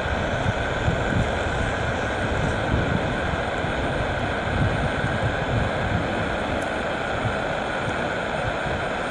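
Saab 340A twin-turboprop airliner heard from a distance as a steady rushing noise during its landing rollout, with wind gusting on the microphone.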